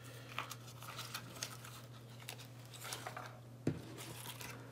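Thin plastic packaging wrap and paper crinkling and rustling as it is handled and bunched up, with a light knock about three-quarters of the way through. A faint steady low hum runs underneath.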